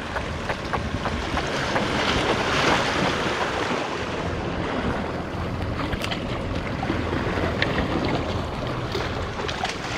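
Sea waves washing against rocks, with wind rushing over the microphone as a steady noise. A few faint light ticks come through in the second half.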